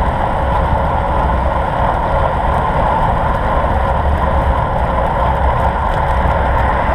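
Wind buffeting the microphone of a bike-mounted camera on a fast road-bike ride: a steady rushing noise with a heavy low rumble.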